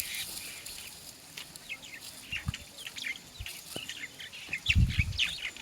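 Small birds chirping in quick, repeated short calls that grow busier toward the end, with a brief low sound a little before the end.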